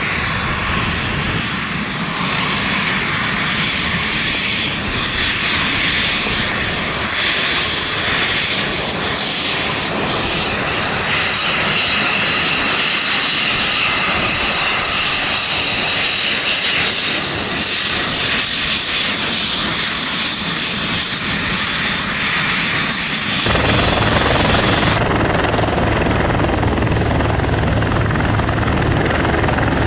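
The turbofan of an L-39 Albatros jet trainer whines steadily as it taxis, its pitch shifting slightly a couple of times. In the last quarter the sound switches abruptly to a CH-146 Griffon helicopter running on the ground: its twin turboshaft engines whine and its spinning rotors add a heavy low beat.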